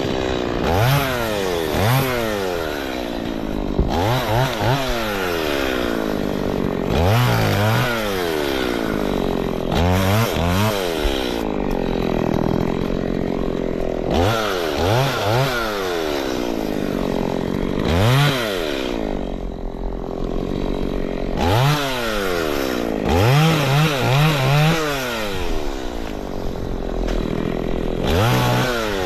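Chainsaw engine running and being revved over and over: each burst of throttle rises sharply in pitch and then sinks slowly back, every two to three seconds.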